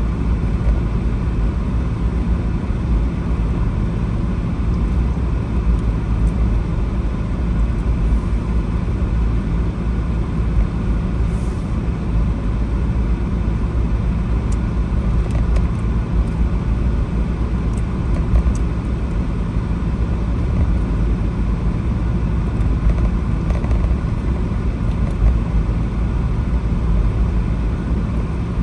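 Car driving along a road: steady engine and tyre noise, mostly a low rumble with no marked changes.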